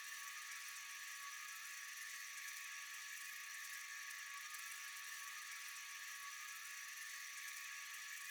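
Steady high-pitched chorus of night insects, an unbroken shrill trill with no pauses.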